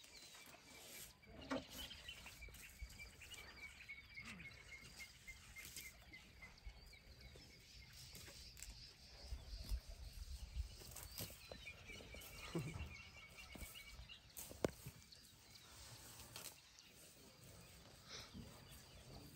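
Faint sounds of African elephants close by: a few soft low calls and scuffing knocks, with a faint high chirping trill in the first few seconds.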